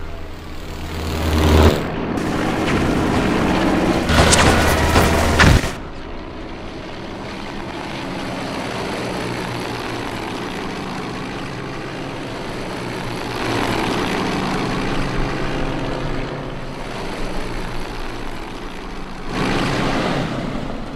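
Radial-engine propeller fighter planes droning in flight. The first few seconds are louder, with a falling pitch as a plane passes, and this part cuts off suddenly. A steady engine drone follows, swelling twice as planes fly by, about two-thirds in and near the end.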